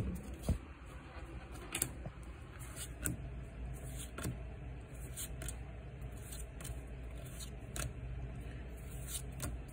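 Pokémon trading cards being flipped through in the hand, a short click or snap every second or so as each card is slid to the back of the stack. Two louder knocks in the first half second from the camera being handled.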